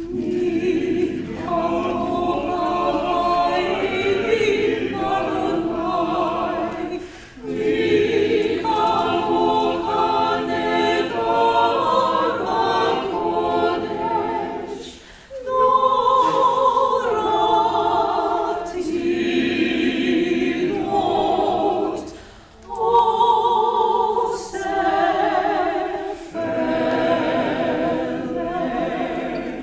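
Mixed chamber choir singing a sacred choral setting, men's and women's voices together, in sustained phrases broken by short breaths every few seconds.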